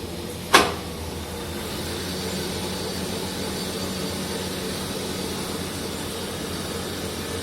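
CNC machine just switched on and running: a sharp clack about half a second in, then a steady hum with a faint high whine.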